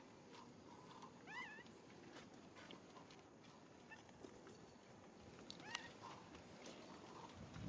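Two faint, short squeaky calls from a pigtail macaque, one wavering up and down about a second and a half in and a brief upward one later, over faint background hiss.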